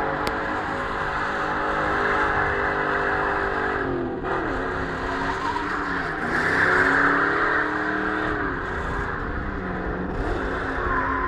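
Car engine revving hard while the car spins donuts, its tyres screeching against the asphalt. The engine pitch dips and climbs again several times as the throttle is worked.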